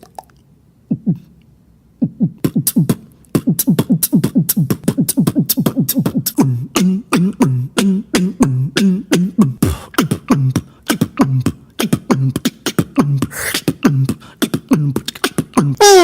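Beatboxing: a fast rhythmic beat of mouth clicks and short, low, pitched vocal tones that bend downward, starting in earnest about two seconds in after a brief near-quiet pause.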